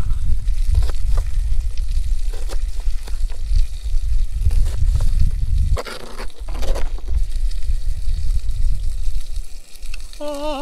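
Kitchen knife dicing a yellow bell pepper on a plastic cutting board: a quick run of blade strokes knocking against the board, easing off about six seconds in.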